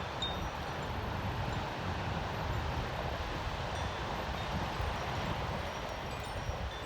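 Koshi chime ringing faintly, a few scattered high tinkling notes, over a steady rush of wind and surf with low wind buffeting on the microphone. The chime is louder just at the start and thins out towards the end.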